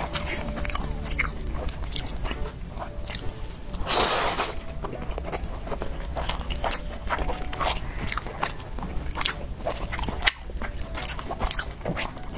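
Close-miked eating sounds: chopsticks clicking and scraping on a plate as they pull apart sticky glutinous rice and braised pork belly, with wet chewing. There are many short clicks, and a louder rustle about four seconds in.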